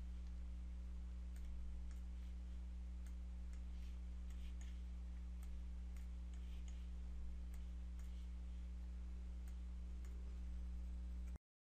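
Faint, irregular clicks of a computer mouse and keyboard over a steady low hum. The sound cuts to dead silence near the end.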